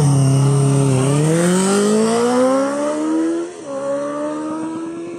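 Honda CBR650R inline-four motorcycle engine launching hard from a standstill: revs held steady for about a second, then climbing, dropping as it shifts up about three and a half seconds in, then climbing again as the bike pulls away and grows fainter.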